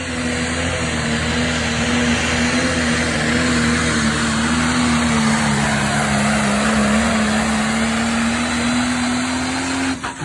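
Pro Stock pulling tractor's turbocharged diesel engine, a modified New Holland T8, at full throttle hauling a weight-transfer sled. A loud, steady roar whose pitch sags a little as the engine loads down partway through the pull, then climbs again near the end.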